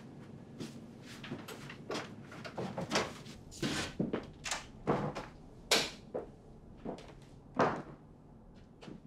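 Apartment door being unlocked and opened: irregular clicks and knocks from the lock and lever handle and the door swinging, loudest a little before 6 s and again near 7.5 s.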